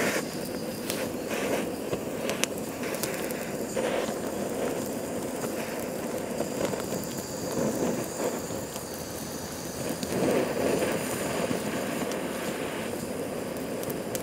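Butane gas torch on a canister burning with a steady rushing hiss that swells now and then as it lights a pile of dry twigs. There are several sharp clicks and crackles in the first four seconds.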